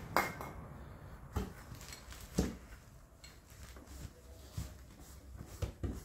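Steel parts of a 1955 Willys inner door latch assembly clinking and knocking as they are handled and set down, a handful of separate sharp clicks, the loudest about two and a half seconds in.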